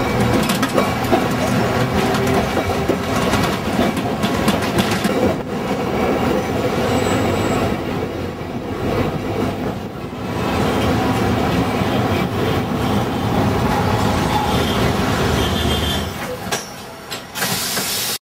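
Old-style electric tram running along its tracks: a steady rumble with scattered wheel-and-rail clicks. The noise falls away near the end and cuts off after a short burst of hiss.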